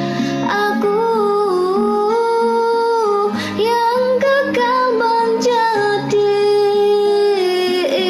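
A woman singing a melody in long held notes that slide and step in pitch, accompanied by guitar.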